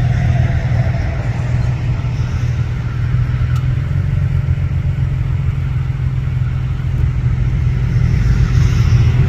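Diesel-electric freight locomotive running as it slowly approaches, a steady low engine drone over a rumble that grows a little louder near the end.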